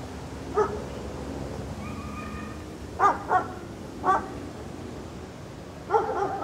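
Golden retriever barking in short single barks: one bark, then a quick pair about three seconds in, another a second later, and one more near the end.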